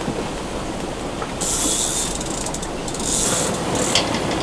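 Fishing reel ratcheting in two bursts, about a second and a half in and again around three seconds, as a hooked fish pulls on the line. A steady rush of wind and water runs underneath.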